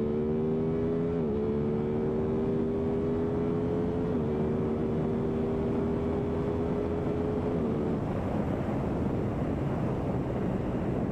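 2023 Aprilia Tuono 660's parallel-twin engine pulling under acceleration, its note rising steadily, with quick upshifts about a second in and about four seconds in. Around eight seconds the engine note falls away as the throttle closes, leaving wind rushing over the microphone.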